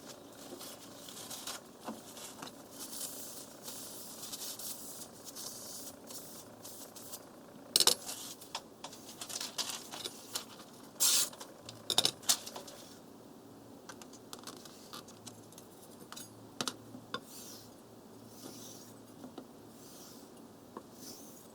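Knife blade being sharpened on a wet water whetstone: hissing, scraping strokes of steel across the stone, with a few sharp clicks of the blade against the stone. The scraping grows fainter about halfway through.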